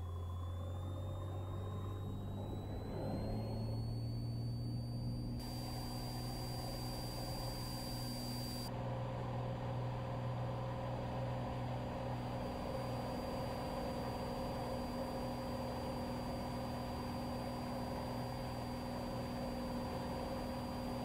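Light single-engine propeller airplane's piston engine going to takeoff power. Its pitch rises over the first few seconds, with a high whine gliding up alongside, then it holds a steady full-power drone.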